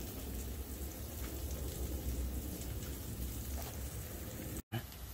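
Pizzas sizzling in springform rings on a hot Blackstone flat-top griddle: a steady crackling hiss of melting cheese and fat, with a low rumble underneath. It drops out for an instant near the end.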